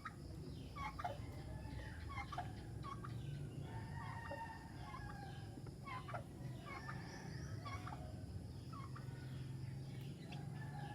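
Domestic poultry calling: many short, sharp calls repeating irregularly throughout.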